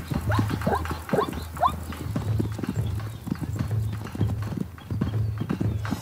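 Hooves of a running herd of plains zebras pounding on dry ground, with a few short high calls from the zebras in the first two seconds.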